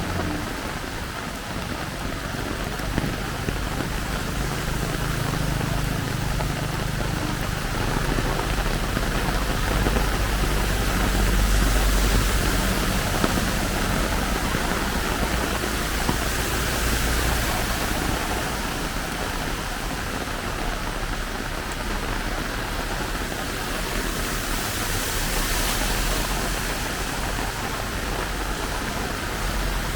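Heavy rain falling steadily: a constant hiss with a low rumble underneath.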